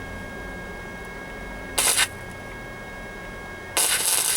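Titanium 125 flux-core welder striking its arc for spot welds, two bursts of arc crackle: a short one about two seconds in and a longer one of about a second near the end.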